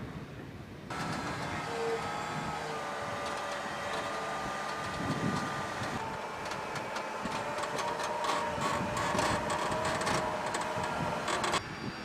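Volvo G930 motor grader working close by: a steady mechanical whine from the machine, shifting in pitch about halfway, with a rapid crackle of soil and stones under the blade in the second half. The sound starts abruptly about a second in and cuts off just before the end.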